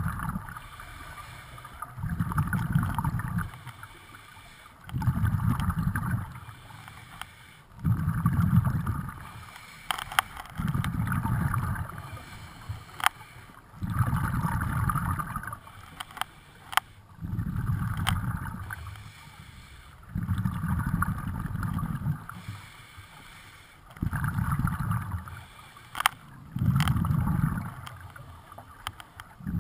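Scuba diver breathing through a regulator underwater: a hiss on each breath alternating with a low rumble of exhaled bubbles, about once every three seconds. A few sharp clicks come in between.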